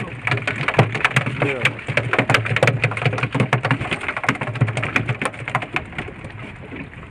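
Rapid, irregular tapping and slapping on a small boat's deck, typical of a freshly caught bonito beating its tail, thinning out about six seconds in. An outboard motor runs low and steady underneath.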